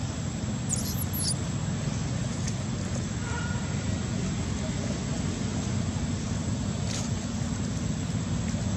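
Steady low rumbling background noise, with a brief faint high chirp about a second in.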